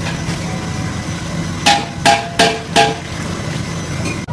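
Four sharp ringing metal strikes in quick succession, about three a second, over a steady low hum.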